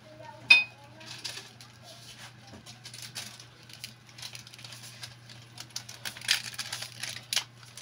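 Pork sinigang broth boiling in a wok over a wood fire, with irregular crackles and pops over a steady low hum. A sharp metallic clink about half a second in is the loudest sound.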